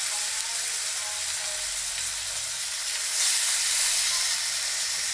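Half a snapper sizzling as it fries in hot butter in a frying pan, a steady hiss that grows louder for about a second, roughly three seconds in.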